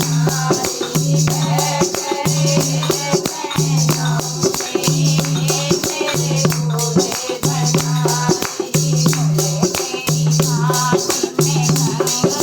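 Hindi devotional bhajan music: a fast, even percussion beat over a low note that repeats about every second and a bit, with a melody line gliding above.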